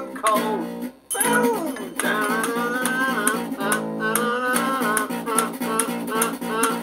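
Music: a guitar-led instrumental passage with a gliding melodic line, briefly dropping out about a second in.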